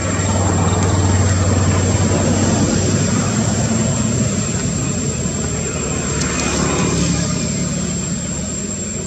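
Motor vehicle engine running nearby: a steady low drone under a broad noisy din. It swells about a second in and slowly fades.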